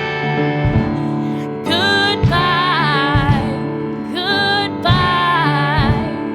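Pop song with a steady beat and sustained keyboard chords, with a sung vocal line coming in about two seconds in.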